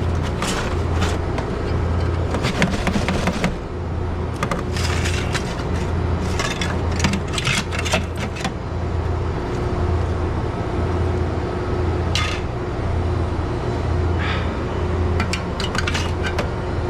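Ice being pried and chipped out of a walk-in freezer evaporator's metal drain pan: scraping, cracking and clinking of ice chunks on metal, dense in the first half, then a few scattered knocks. The ice build-up is one the technician suspects comes from a clogged drain or a broken drain pan. A low hum throbbing in an even rhythm runs underneath.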